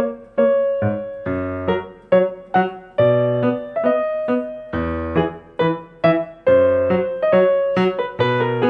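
Piano music: a run of struck notes and chords, each dying away, with low bass notes under them.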